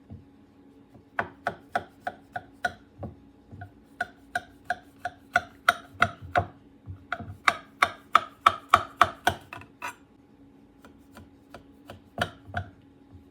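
Sharp knife cutting through the stacked phyllo layers of unbaked baklava in a baking pan: a quick run of chopping strokes, about three to four a second, with a short pause near the end.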